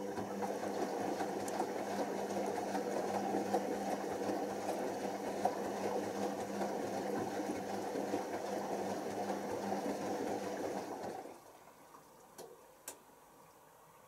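Washing machine drain pump pumping out the rinse water: a steady electric hum under a rushing, gurgling water noise that cuts off suddenly near the end, followed by two faint clicks.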